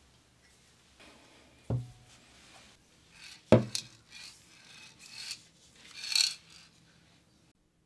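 Two knocks, as of something set down on a hard workbench, the second louder, followed by several short rubbing or scraping strokes on a rusty metal oil lamp part.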